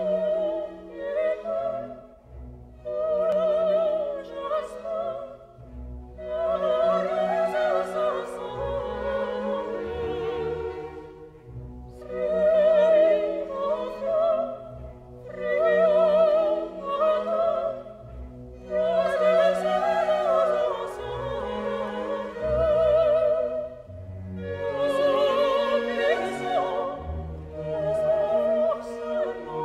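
Background music: an operatic voice singing with strong vibrato over an orchestra, in phrases a few seconds long with short breaths between them.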